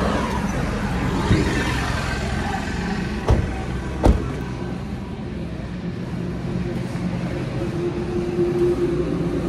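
Car doors being shut, two sharp thuds about a second apart, over a steady rumble of road traffic.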